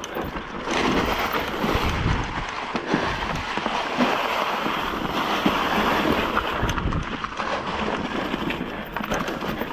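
Wind rushing over the microphone of a downhill mountain bike descending a steep trail, mixed with tyre noise on dry leaves and dirt. A few sharp knocks come from the bike jolting over bumps.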